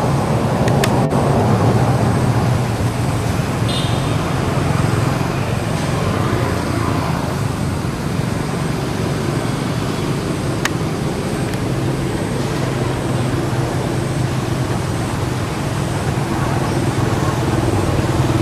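Steady low rumble of motor traffic, with a continuous engine hum and a couple of faint clicks.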